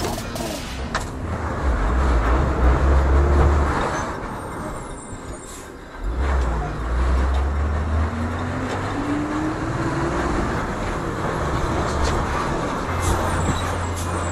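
Rear-loader garbage truck running, with its engine speeding up to drive the compactor hydraulics as the packer is cycled: a heavy low rumble that drops away briefly about halfway through, then comes back suddenly with a rising whine.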